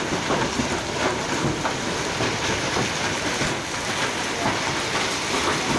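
Hailstorm: heavy rain and hail falling on a garden, a dense steady hiss sprinkled with many small ticks of impacts.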